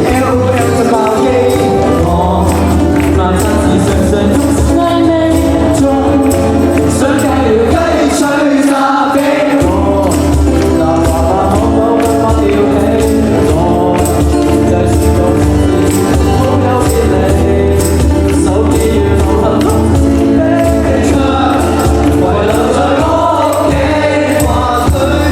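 Live band playing a song with singing over a steady beat of drums and cymbals and a strong bass line.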